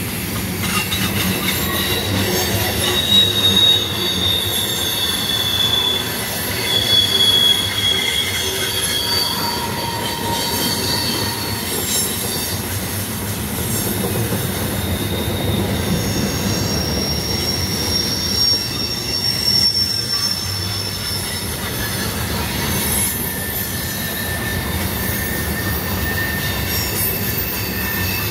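Freight train's covered hopper cars rolling past: a steady rumble of steel wheels on rail, with drawn-out high-pitched wheel squeals that come and go, several at different pitches.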